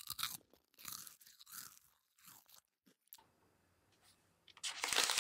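Plastic bread wrappers crinkling and crackling as packaged cream breads are handled: scattered short crackles at first, then a dense, louder run near the end.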